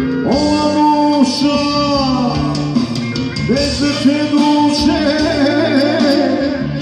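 Live band music: a male singer sings a long, sliding, ornamented melody into a microphone over keyboard accompaniment and a drum kit.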